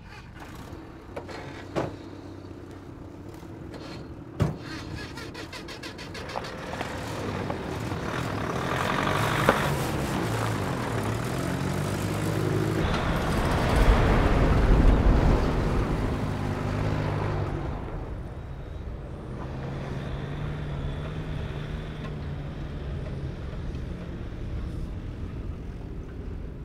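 Two sharp knocks like vehicle doors slamming shut. Then military off-road jeep engines start and pull away on a dirt track, revving up and changing gear, loudest about halfway through. They then keep running steadily.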